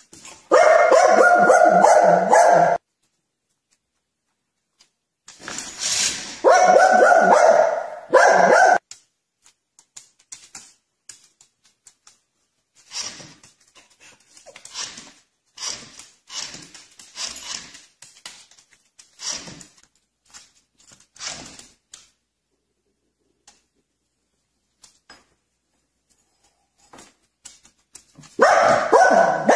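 Dogs barking and whining across several short clips: loud pitched stretches about half a second in, around six seconds in and again near the end, with fainter short sounds in between.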